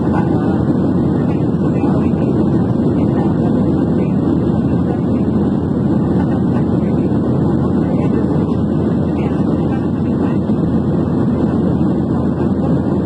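Steady cabin noise of a Boeing 737-800 in climb after takeoff, heard from inside the passenger cabin: its CFM56-7B turbofan engines running and air rushing past the fuselage, a constant low drone without change.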